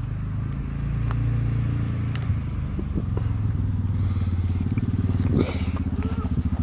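Small-block Chevy V8 in a 1971 Chevy Nova idling steadily, with an even pulsing beat in its low exhaust note.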